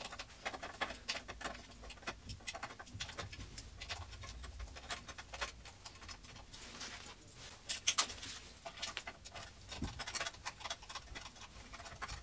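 Small screws being driven into a plastic TV-stand bracket with a pocket multitool: a run of light, irregular clicks and scrapes, with a louder cluster about eight seconds in.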